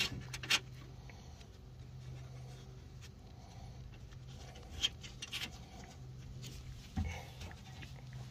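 Scattered light clicks and scrapes of hands working metal parts inside a car door, as the window regulator's mounting bolts are threaded in finger-tight. A sharper click comes about half a second in, another near the middle, and one about seven seconds in, over a steady low hum.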